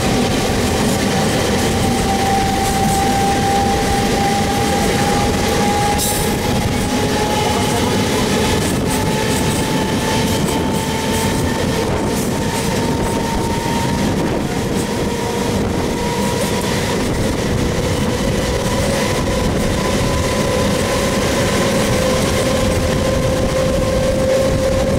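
MEMU electric train running at speed, heard from on board: a steady rumble of wheels on the rails with a few faint clicks. Over it a whine climbs slowly in pitch as the train gathers speed.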